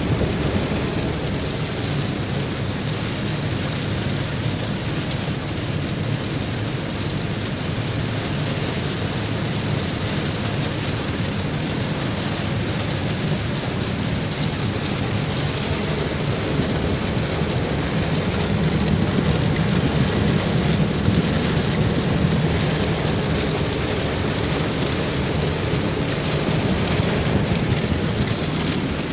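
Steady rain falling, a little louder about two-thirds of the way through.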